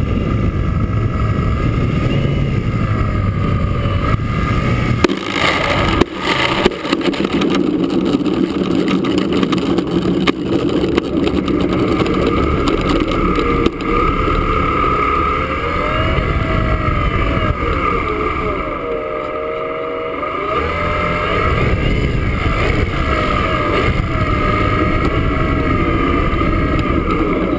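Radio-controlled T-28 Trojan model plane's motor and propeller running through a landing: a few sharp knocks as the wheels touch down about five to seven seconds in, then the motor's pitch rising and falling as it taxis on the runway.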